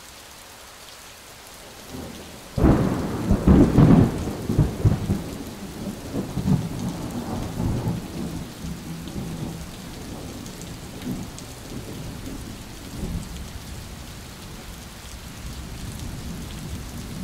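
Thunderstorm: steady rain with a sudden clap of thunder about two and a half seconds in that rumbles for several seconds and dies away, then a fainter roll of thunder later on.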